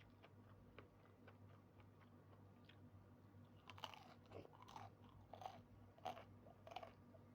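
A person chewing crunchy food close to the microphone, with a run of crunches and mouth sounds over the second half.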